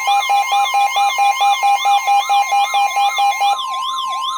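Weather radio alert tones: a steady warning tone near 1 kHz with a beep about four times a second, under a siren-like wail that rises and falls about three times a second. About three and a half seconds in the beeping stops and the wail turns wider and slower.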